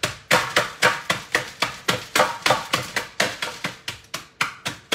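Walnuts being beaten with a wooden rolling pin to a rough chop: a rapid run of sharp knocks, about four a second.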